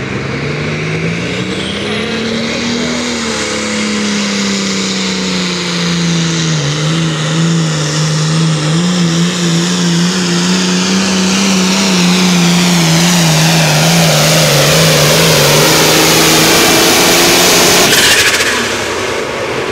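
Competition pulling engine under full throttle on a pull, its pitch climbing over the first couple of seconds, then holding with a slight wobble while it gets steadily louder. It cuts off sharply near the end as the run ends.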